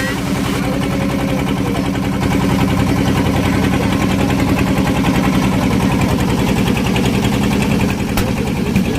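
A small boat's engine running steadily, a low, even chugging.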